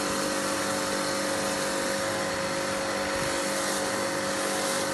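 Pressure washer running steadily, its lance jetting water into a bucket of car shampoo and churning it into foam: a constant motor-and-pump hum over the hiss of the spray.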